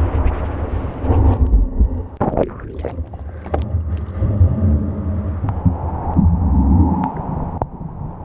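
Surf water and sand churning around a long-handled metal sand scoop and the camera clamped to its pole as the scoop digs and dips under the water. The sound is a low rumble with sloshing and a few sharp knocks.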